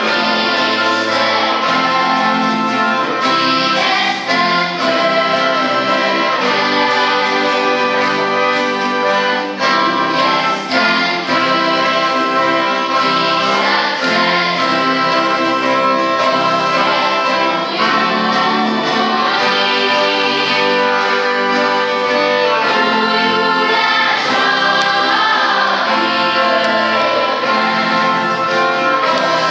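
Children's choir singing a song, accompanied by violins and guitars.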